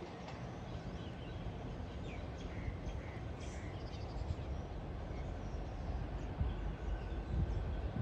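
A distant diesel train running away along the track, a steady low rumble, with a few bird chirps over it about halfway through.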